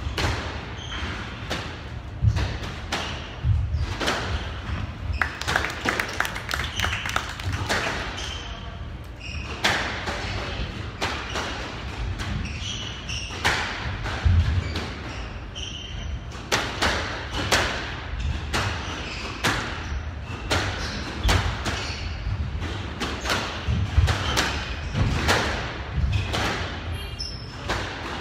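Squash rally: the ball cracks off the walls and rackets in repeated sharp hits, with heavy thuds, and shoes squeak now and then on the hardwood court floor.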